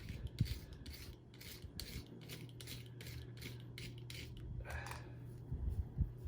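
Repeated short rasping strokes, about three or four a second, as wound-up hair is cut and scraped off a vacuum cleaner's beater bar brush roll. A steady low hum runs underneath.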